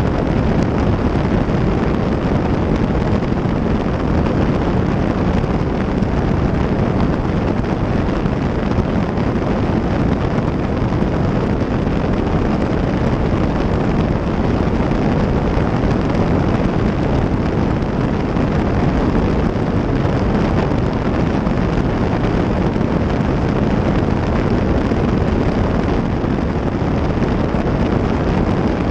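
Steady rush of wind over a camera mounted on the tail of a Cessna 340 in flight, mixed with the drone of its twin piston engines during the climb after takeoff.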